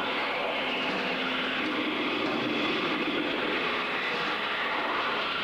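Live free-improvised ensemble music: a dense, steady wash of noise with a few faint held tones underneath, from players on percussion, guitar and electronics, strings, saxophone and piano.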